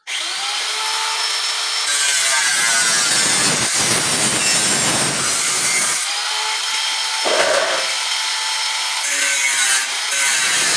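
Angle grinder with an abrasive cutting disc cutting light-gauge steel frame channel. It starts abruptly, whining while spinning free and turning to a harsher grind in several bouts as the disc bites into the metal.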